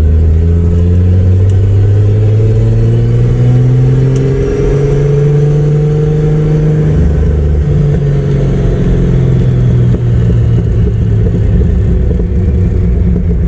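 Turbocharged straight-six engine of a Chevrolet Opala pulling under acceleration, its pitch rising steadily for about seven seconds. It then drops, as at a gear change or lift-off, and runs on at a steady note.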